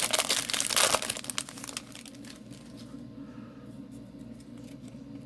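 A trading-card booster pack wrapper being crinkled and torn open, loudest and busiest for about the first two seconds, then dropping to faint rustling as the cards are handled.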